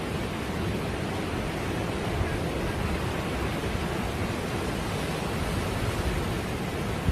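Steady, even rushing noise with no distinct events, typical of wind or surf on an outdoor microphone.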